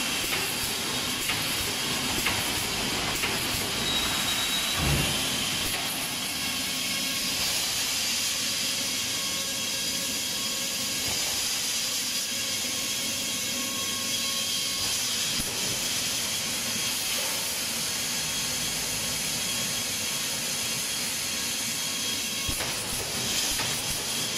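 Automatic wire mesh welding machine line running: a steady hiss with machine noise, and one brief low thump about five seconds in.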